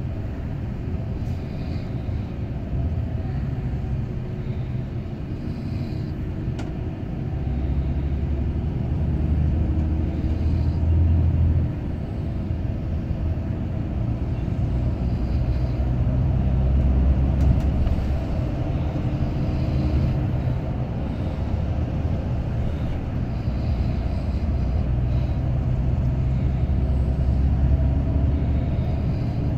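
Steady low engine drone and road rumble inside a Scania multi-axle coach at highway speed. It grows louder about seven seconds in, drops back suddenly a few seconds later, and swells again midway.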